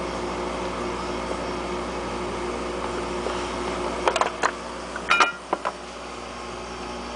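Steady mechanical hum like a fan running, with a few short clicks and light clinks about four seconds in and again just after five seconds.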